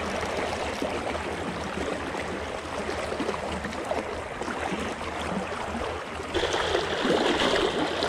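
Fast current rushing and swirling around a wading angler. About six seconds in it grows louder with splashing as a hooked striped bass is pulled thrashing to the surface.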